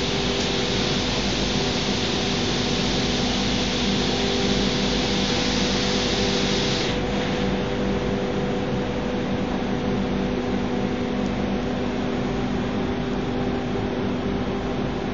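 ATC CNC wood router and its dust extraction running: a steady machine hum with several held tones under a hiss. The high hiss falls away sharply about seven seconds in while the hum carries on.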